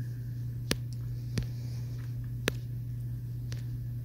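A steady low hum with four short, sharp clicks at uneven intervals.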